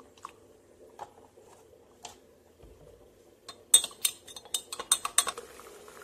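A metal spoon stirring in a glass, with a few light taps and then a quick run of sharp clinks against the glass about halfway through. Near the end, hot water starts pouring into the glass from a kettle with a steady faint hiss.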